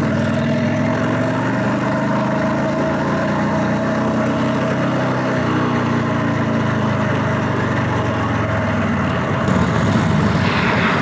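1947 Harley-Davidson 45's flathead V-twin running under way, its pitch falling slowly over several seconds as it slows, then louder again near the end. A worn engine that the riders call tired.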